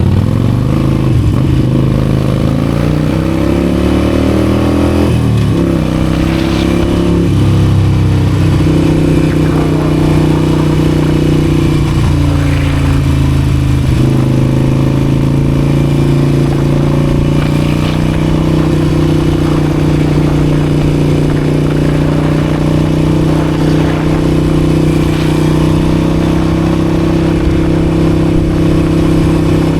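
Harley-Davidson Forty-Eight's V-twin engine accelerating, its pitch rising and then dropping sharply at a gear change about five seconds in and climbing again. It settles into a steady cruise for the second half, heard from a mic inside the rider's helmet.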